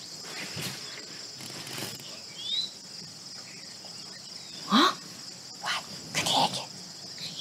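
Insects chirping steadily in a film soundtrack played over an auditorium's speakers, with a short rising voice sound a little after the middle and a few soft breathy sounds after it.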